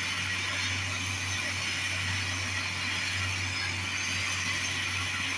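Steady hiss of a jeweller's soldering torch flame, with a low hum underneath.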